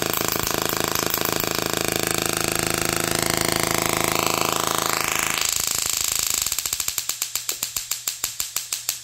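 Small desktop solid-state Tesla coil discharging sparks with a harsh, steady electric buzz. As its control knobs are turned, the tone sweeps upward. After about six seconds it breaks into a train of sharp snapping pulses, about four a second.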